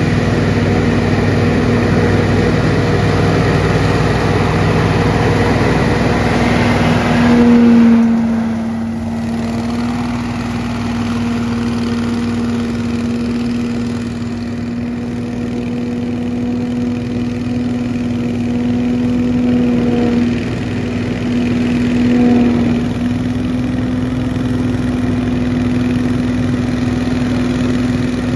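Billy Goat Hurricane Z3000 ride-on leaf blower, driven by a 35 hp Briggs & Stratton engine, running steadily under a constant hum. A rushing blast of air fills the first part, swells briefly about eight seconds in, then drops away, leaving mostly the steady engine-and-fan hum with another short swell later.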